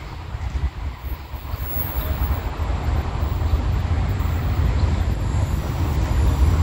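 Approaching train, a low rumble building steadily louder.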